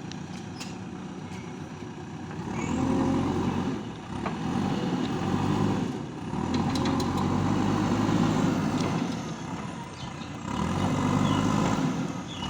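Diesel engine of a JCB 3DX backhoe loader running. It swells louder four times, each lasting a couple of seconds, as it takes load from the hydraulics while the machine digs, with a few light knocks among them.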